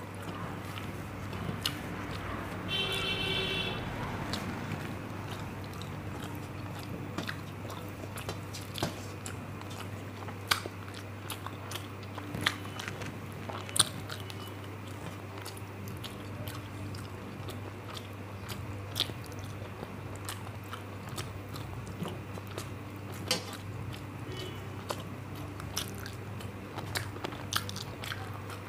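Close-miked eating sounds of rice and curry being eaten: chewing, wet mouth smacks and sharp clicks at irregular intervals, over a steady low hum.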